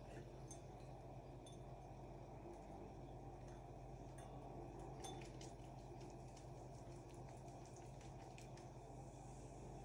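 Near silence: a faint steady hum of room tone, with a few soft clicks from a glass ball ornament being handled.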